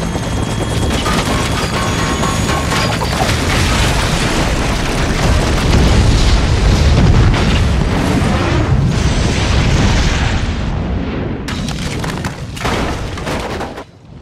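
Film sound effects of a helicopter crashing into a stone house and a huge explosion: a continuous loud rumbling blast, at its loudest about six to eight seconds in. It then thins to a few sharp cracks of debris and drops off suddenly near the end.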